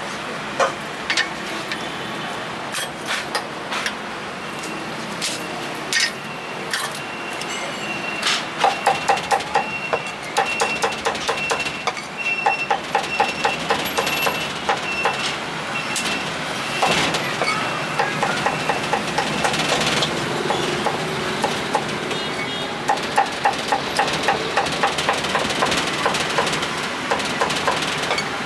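Meat cleaver chopping roast and braised pork on a thick wooden chopping block: a few scattered single chops at first, then from about eight seconds in, repeated runs of rapid chops, about five a second.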